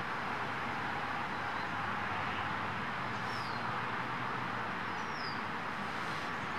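Steady outdoor background noise, an even wash with no single source standing out, with two brief high falling chirps, like a small bird's, about three and five seconds in.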